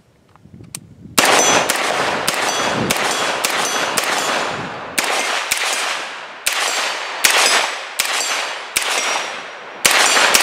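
9mm AR pistol with a 6-inch barrel and a flash can firing a steady string of shots, about two a second. It is a run of some eighteen rounds, with each crack trailing off quickly.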